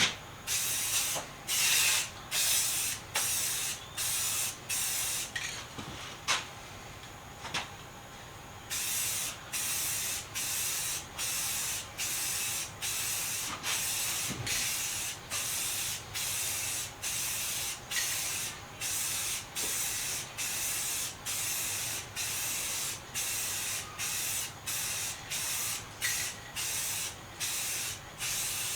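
Aerosol spray can spraying in short repeated bursts, about one a second, a few bursts with gaps at first, then a steady run of regular bursts over a continuous hiss from about nine seconds in.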